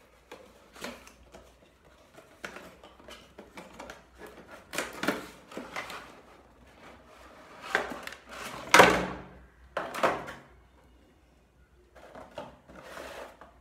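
Cardboard retail box being opened by hand: its flap lifted and the clear plastic tray inside pulled out, giving irregular rustles, scrapes and light knocks. The loudest scrape comes about nine seconds in, with another about a second later.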